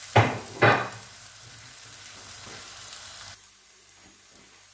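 Egg frittata frying in a nonstick pan, a steady sizzle, with two sharp knocks in the first second. The sizzle drops away about three and a half seconds in.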